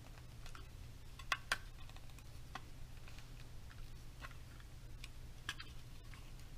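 Scattered small clicks and taps of a plastic wall plate and motion sensor being handled against an electrical wall box, the two loudest close together about a second and a half in, over a low steady hum.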